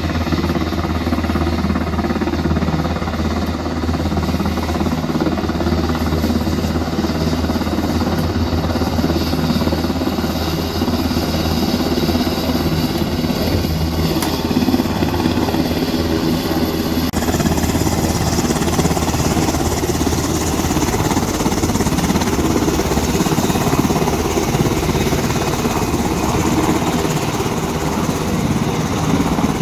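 Helicopter running at close range: a loud, steady turbine-and-rotor drone with rapid pulsing, and a rushing hiss that grows brighter about halfway through.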